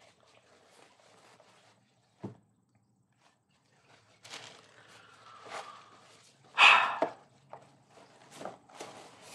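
Packaging and paper rustling with items being handled as a gift box is unpacked, with a sharp click about two seconds in and the loudest rustle a little before seven seconds.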